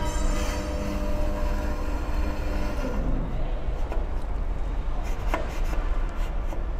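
The drive of a CNC double-head aluminium cutting saw moving the movable saw head along its rail to the set cut length: a steady multi-toned whine that stops about three seconds in. After it comes a steady low hum with a few light clicks.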